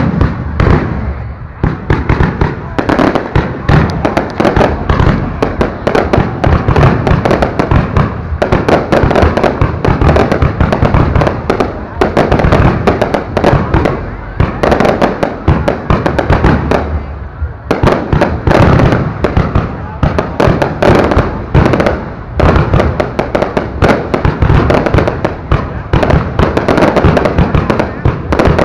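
Aerial fireworks shells bursting close overhead in a dense, nearly continuous barrage of loud bangs and crackling, with a short lull about two-thirds of the way through.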